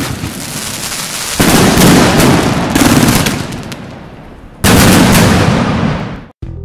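Fireworks going off: three loud bursts, about a second and a half, three and just under five seconds in, each followed by a noisy crackling tail that dies away over a second or more.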